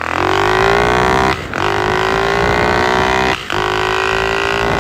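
110cc pit bike engine fitted with a racing carburettor and velocity stack, pulling hard: the engine note climbs steeply and then holds high. It is broken by two brief drops in sound, about a second and a half in and again about three and a half seconds in.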